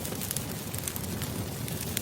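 Wood campfire crackling: a steady low rumble of burning with a few sharp, irregular pops and snaps.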